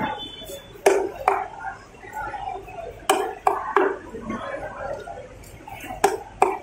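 A wooden baton knocks on the back of a long knife, driving the blade through giant trevally steaks into a wooden chopping block. There are about seven sharp knocks in three groups: two about a second in, three around the middle, and two near the end. Voices murmur between them.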